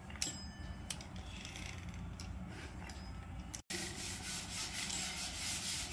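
Faint rubbing and scraping of a fluted metal pastry-cutter wheel rolling through thin maida dough on a chapati rolling board, with a couple of light clicks in the first second and a brief dropout a little past halfway.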